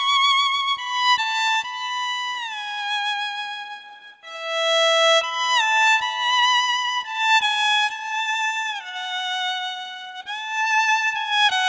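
Electric violin playing a slow melody of held notes with vibrato, sliding smoothly from one note to the next.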